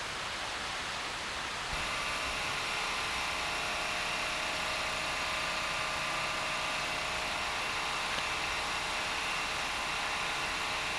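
Rushing stream water for a moment, then, from about two seconds in, a steady machine-like hum with several held tones over a hiss.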